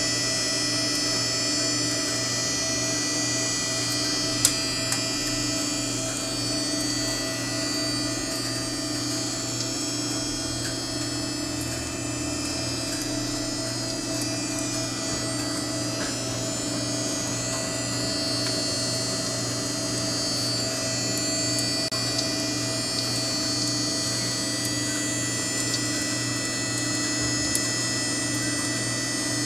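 Home-built coffee bean roaster running: a steady electric motor hum with a faint pulse about once a second, and a couple of small clicks about four seconds in.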